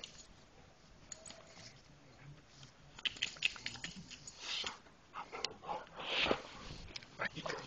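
Dogs snuffling and sniffing close up, with scuffing and clicking. It is quiet for about the first three seconds, then comes a run of short, rough bursts and clicks.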